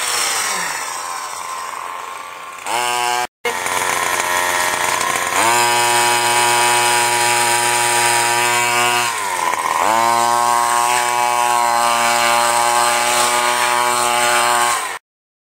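Small 23cc two-stroke petrol engine of an RC buggy, revving hard. Its pitch falls over the first two seconds, then it cuts out briefly. From about five seconds it holds a high, steady buzz, dips and climbs again near ten seconds, and cuts off abruptly just before the end.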